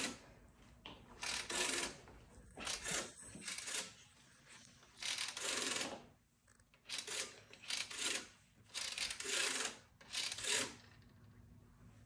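Rotary telephone finger dial being dialled: about eight digits, each a short whirring, clicking return of the dial, some shorter and some longer.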